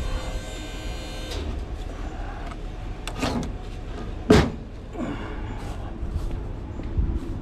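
A heavy wooden beam being dragged off a steel flatbed, knocking and scraping. There are a few light knocks, then one loud knock about four seconds in.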